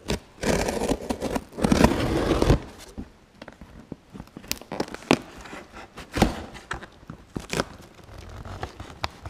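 Scissors slicing through the packing tape on a cardboard shipping box: two long cuts in the first two and a half seconds, then scattered snips and knocks of the blades on the cardboard.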